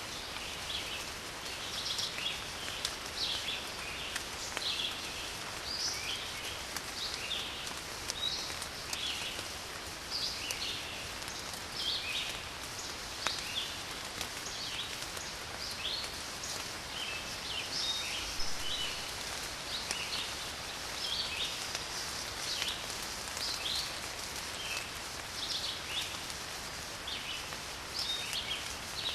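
Steady rain falling, with small birds chirping many times over it throughout.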